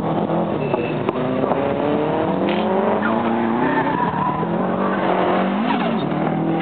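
Subaru Impreza's flat-four engine revving hard and dropping back as it is driven round a tight cone course, pitch climbing, falling and climbing again through the gears and turns, with some tyre squeal.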